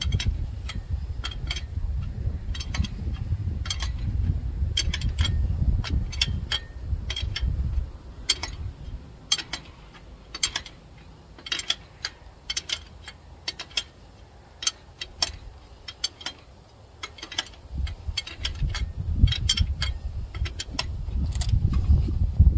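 A hand ratchet wrench clicking in irregular runs of short ticks while bolts are worked loose on the top end of a Caterpillar 3406B diesel engine. A low rumble lies under the clicks for the first third and again near the end.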